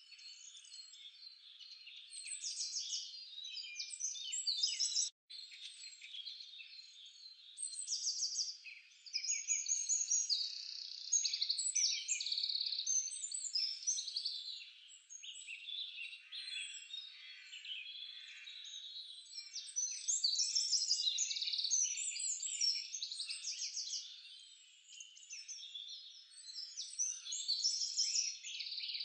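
Dense chorus of small birds chirping and trilling, many high, quick calls overlapping, which drops out for an instant about five seconds in.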